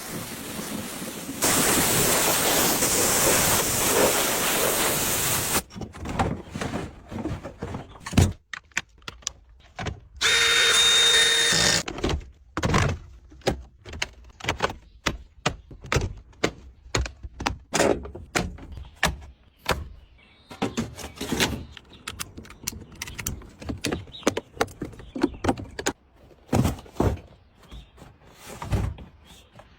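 Spray hissing hard for about four seconds, like a pressure-washer jet, then a long run of irregular knocks and clunks of tools on the car, broken about ten seconds in by a short power-tool whine lasting under two seconds.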